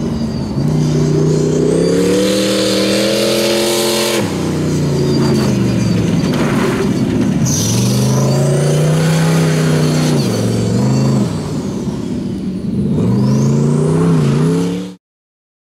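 Off-road race vehicle's engine revving hard in several bursts: the pitch climbs under throttle and drops sharply each time it lets off, with a high whine rising and falling above it. The sound cuts off abruptly near the end.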